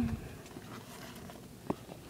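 Quiet handling of plastic airsoft-gun parts, with a single sharp click near the end.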